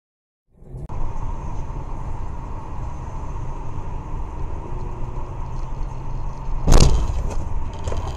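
Road and engine noise heard from inside a moving car, starting about half a second in and running steadily. A single sudden loud thump comes about six and a half seconds in.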